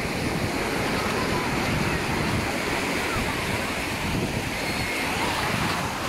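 Small sea waves breaking and washing up the sand at the shoreline, with the voices and shouts of a crowded beach faint in the background.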